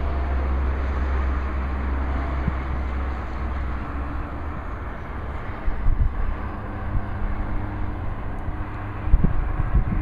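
Steady hum of highway traffic, with low gusts of wind buffeting the microphone in the second half.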